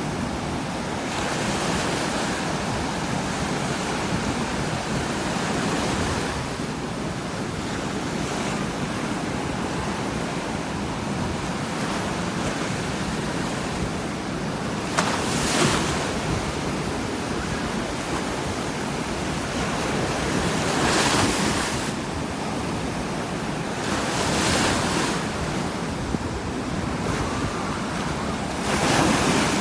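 Strong ocean surf pounding the beach, waves crashing onto the shore every few seconds over a constant wash. Wind buffets the microphone.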